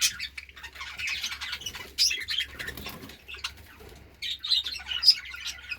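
Many budgerigars chirping and chattering in their cages, a busy mix of short, high calls.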